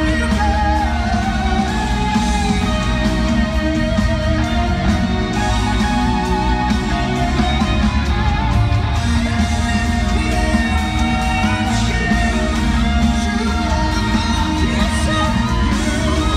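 Live band playing with drums, guitars and keyboards, a lead singer's voice carrying the melody, heard loud from the audience in a large hall.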